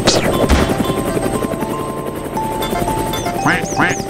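Cartoon helicopter sound effect, a fast rotor chop, under cheerful children's background music. A run of cartoon duck quacks starts near the end.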